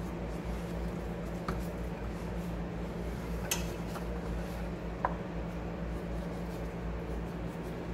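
A steady low hum, with three faint light clicks of vegetable slices and fingers against a glass baking dish of rice as the slices are laid out.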